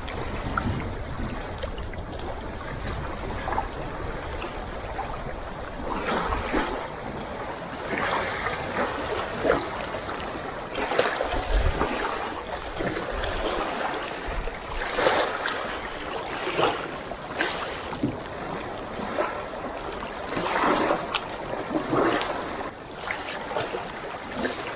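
Breezy beach ambience: wind on the microphone and small waves washing on the shore, swelling irregularly every second or two.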